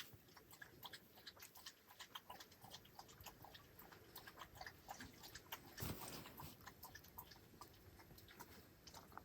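A dog chewing: faint, irregular small clicks and smacks, with one louder rustle about six seconds in.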